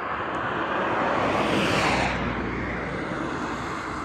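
A car passing on the road close by: tyre and engine noise swelling, loudest about two seconds in, then fading away.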